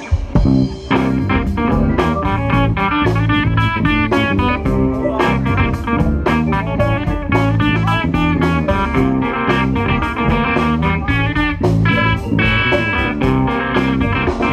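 Live band playing an instrumental section: electric guitar over bass guitar, drum kit and keyboard, with no singing.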